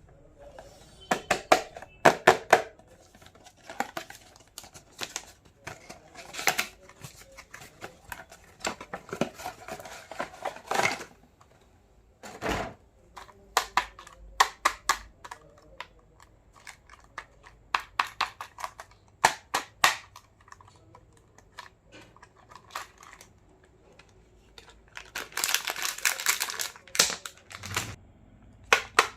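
Hands unboxing and handling a plastic toy kitchen set: many sharp clicks and taps of small plastic pieces set down and fitted together, with a stretch of crinkling plastic packaging near the end.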